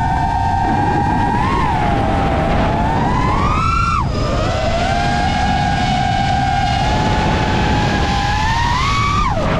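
FPV quadcopter motors whining as the throttle is worked. The pitch climbs, then drops sharply when the throttle is chopped about four seconds in and again near the end, over a steady low rumble.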